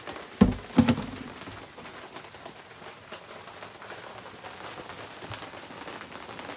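Two sharp knocks about half a second apart, a plastic bin being moved and set down, followed by a faint steady hiss.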